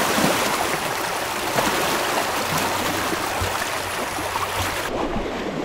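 Small lake waves lapping and washing against a rocky shoreline, a steady rushing hiss that turns duller near the end.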